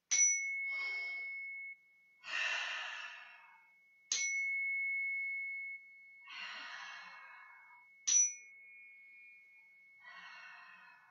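A handheld chime struck three times, about four seconds apart, each strike ringing a clear high tone that slowly fades. Between the strikes come deep breaths, each a long audible exhale.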